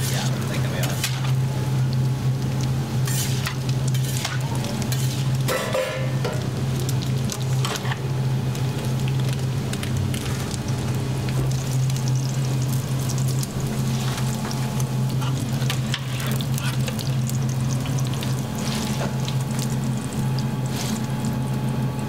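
Beef meatballs sizzling in hot fat in a large stainless-steel roasting pan, with scattered clicks and scrapes of a wire basket against the steel as they are stirred and scooped out. A steady low hum runs underneath.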